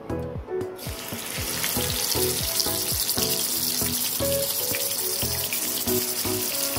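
Spice-marinated rohu fish pieces frying in hot oil: a loud, steady sizzle that starts about a second in as the first piece goes into the pan, over background music with a beat.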